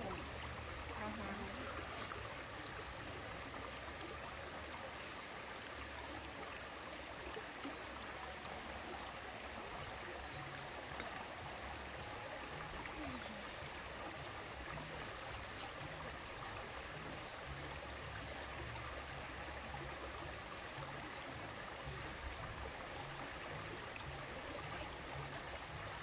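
Shallow rocky river flowing over stones: a steady, even rush of running water.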